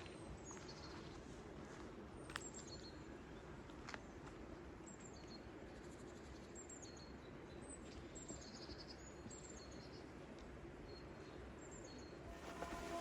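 Faint outdoor ambience with a small bird giving short high chirps, repeated irregularly every second or so, and two soft clicks. Music starts to fade in near the end.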